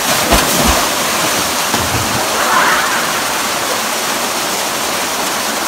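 Small waterfall pouring over rocks and splashing around a bather, a loud steady rush of water. A few low thumps come in the first two seconds.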